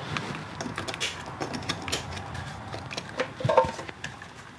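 Scattered clicks and light knocks of a handheld battery load tester and its clamp leads being handled and clipped onto a car battery's terminals, with a brief clatter about three and a half seconds in.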